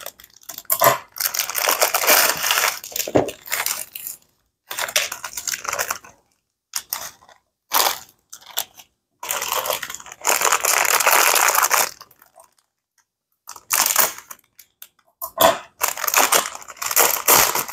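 Crinkly plastic instant-noodle packets being torn open and handled, with dry noodle blocks crunching as they are broken and tipped into a plastic bowl. The sound comes in irregular bursts with short pauses.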